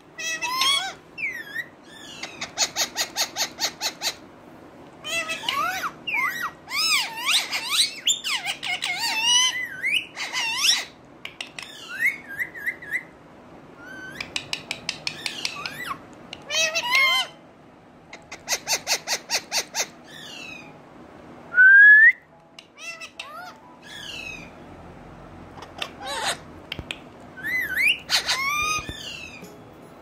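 Indian ringneck parakeet calls: high whistles that glide up and down, mixed with bursts of rapid, even chattering pulses, in short bouts with brief pauses. The loudest is a single sharp rising whistle about two-thirds of the way through.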